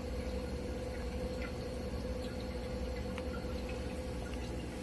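Floating ultrasonic mist-maker humidifier running in a water reservoir: its small fan gives a steady hum, with faint scattered ticks and drips from the agitated water.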